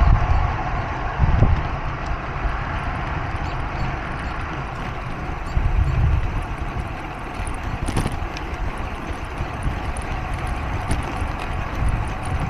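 Road cycling noise: a steady hiss of tyres and air rushing past, with wind buffeting a small action camera's microphone in low rumbling gusts. There is a single sharp click about eight seconds in.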